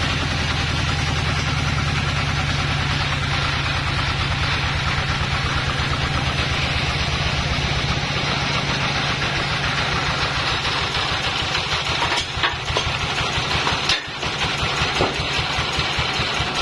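Band sawmill running steadily with a continuous mechanical drone, its low hum weakening about halfway through. A couple of sharp knocks come near the end.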